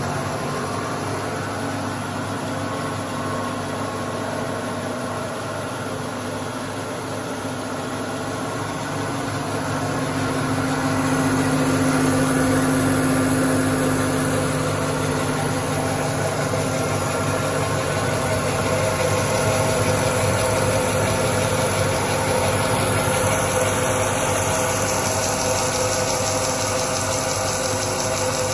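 COSMA 600 wood band saw with a 2.2 kW motor running: a steady machine hum that grows somewhat louder about ten seconds in.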